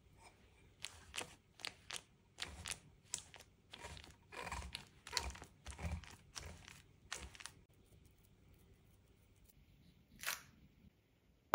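Fingers pressing and patting a crumbly almond-flour and butter crust into a metal springform pan: a faint run of soft, irregular crunching pats, then a pause and one more short pat near the end.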